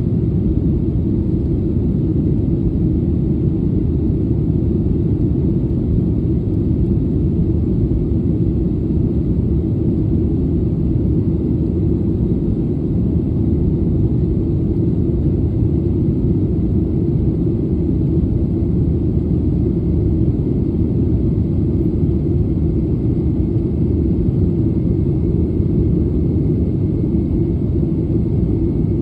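Steady, unchanging roar inside the cabin of a Boeing 737-800 in climb: its CFM56-7B turbofan engines and the rush of air over the fuselage, heavy in the low end.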